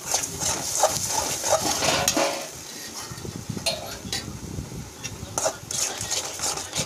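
Steel spatula stirring and scraping a thick masala paste around a metal kadai, with clinks of metal on metal. The strokes come thick and fast for the first couple of seconds, then more sparsely.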